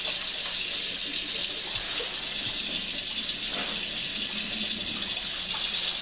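Kitchen faucet running steadily into a sink, the stream splashing over a plastic hummingbird feeder part being rinsed under it.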